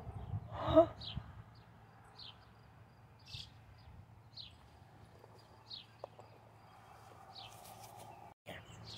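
Small birds giving short, high chirps every second or so, over a faint steady low hum.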